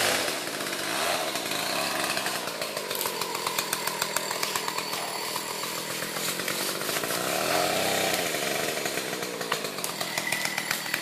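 Two-stroke chainsaw running, revving up and easing off around a second in and again near eight seconds, with a rapid irregular clicking over it through most of the stretch.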